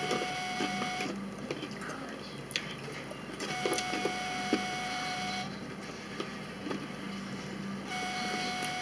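A steady electrical hum of several pitches that keeps cutting out and back in. It stops about a second in, returns after about two and a half seconds, stops again about two seconds later and comes back near the end. Faint clicks sound in the quieter gaps.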